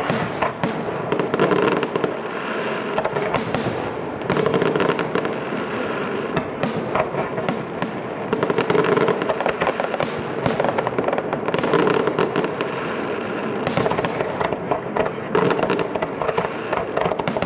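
Fireworks display: a dense, continuous run of bangs and crackling from bursting shells, with music playing underneath.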